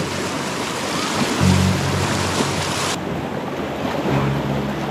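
River riffles rushing and splashing around a kayak's bow, a steady noise of moving water; the bright hiss of it thins out about three seconds in.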